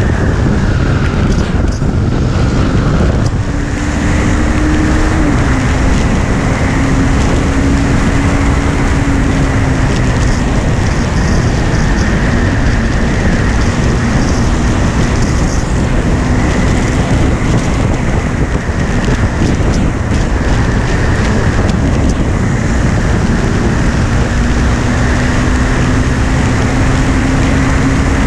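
KTM 390 Duke's single-cylinder engine running hard at speed, heavily masked by wind buffeting the microphone. The engine note shifts in pitch about five seconds in, then holds, and climbs slowly near the end.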